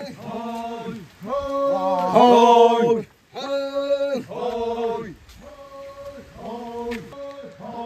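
Voices chanting a festival song in short repeated phrases of held notes that rise and fall. The chant is loudest a little after two seconds, where two voices overlap.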